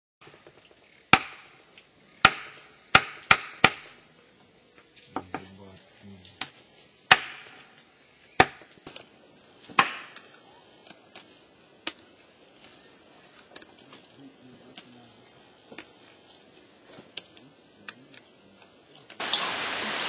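Sharp chopping strikes at irregular intervals, with a quick run of four in the first few seconds and fewer, fainter ones later, over a steady high-pitched insect drone.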